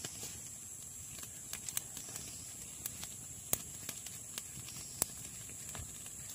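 Wood campfire crackling, with sharp irregular pops about twice a second, two louder ones in the middle, over a steady high-pitched buzz.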